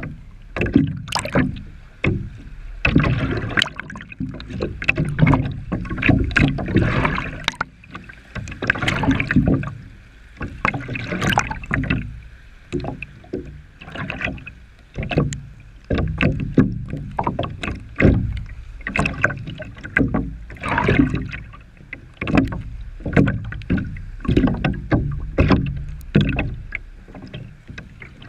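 Gusty wind buffeting the camera's microphone in irregular surges that rise and fall every second or two, with scattered clicks.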